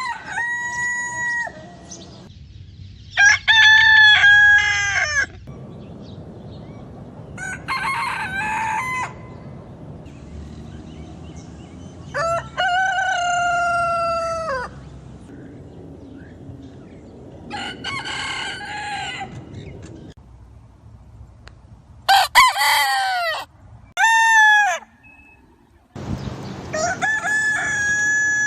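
Roosters crowing, one cock-a-doodle-doo after another, about eight crows in all, a few seconds apart and differing in pitch and length. Two short crows come close together about two-thirds of the way in.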